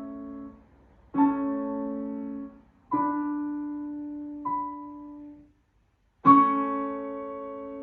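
Piano playing slow, separate chords, each struck and left to ring and fade. After a short silence, a last loud chord is struck near the end and held, ringing out like the close of a piece.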